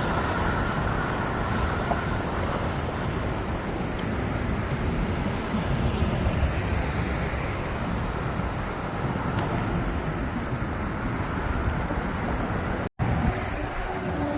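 Steady road traffic noise from a busy highway, with a low rumble underneath. The sound cuts out for a split second near the end.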